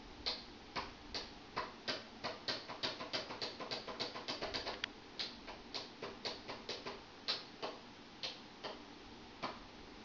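Toggle switches on a home-made wiring practice board being flipped over and over: a string of sharp clicks, fastest in the middle at about five a second, then thinning out.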